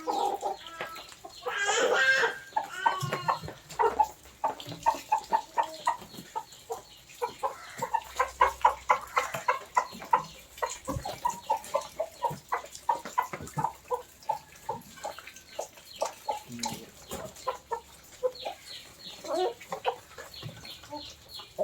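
A flock of hens clucking steadily, short clucks following one another several times a second, with one louder, harsher squawk about two seconds in.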